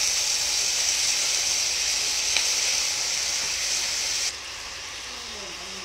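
Green beans and carrots sizzling in a hot, oiled pan as they are stir-fried with a spatula after a splash of water, with a single sharp tick about two seconds in. The sizzle cuts off suddenly a little past four seconds, leaving a fainter hiss.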